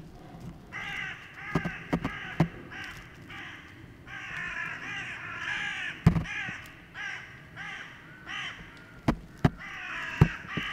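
An animal calling over and over in long runs of rough, wavering calls, broken by short pauses. Several sharp clicks or knocks come between the calls, the loudest about six seconds in and again near the end.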